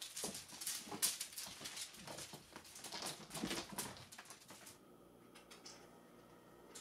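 Mylar butterfly wand toy crinkling and rustling in quick, crackly bursts as it is flicked about for a cat, alongside short animal sounds. About five seconds in the crinkling stops, leaving a quiet room with a few faint crinkles.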